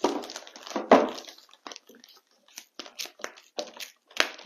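Crinkly plastic wrapping bag around a new motherboard being unfolded and pulled open by hand: irregular crackling and rustling, densest in the first second, then scattered crackles.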